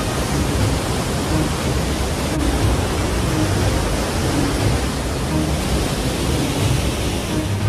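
Mountain river rapids rushing over boulders close by: a steady, loud roar of whitewater.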